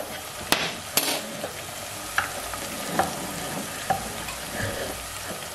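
An onion-and-tomato base with spices sizzling in oil in a stainless steel pot. A few sharp knocks of a stirring spoon against the pot stand out over the steady hiss.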